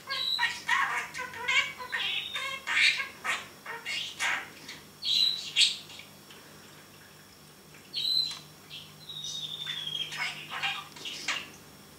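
Male budgerigar chattering and warbling in quick runs, broken by short high whistles, one of them sliding slightly down in pitch. It goes in two spells with a pause of about two seconds in the middle.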